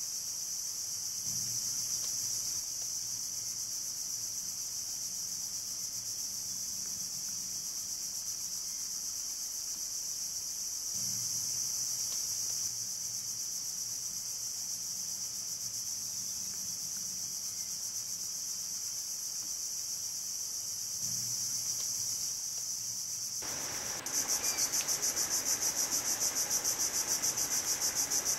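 Steady high-pitched chorus of insects. About four seconds before the end it changes to a louder, rapidly pulsing insect trill over more background hiss.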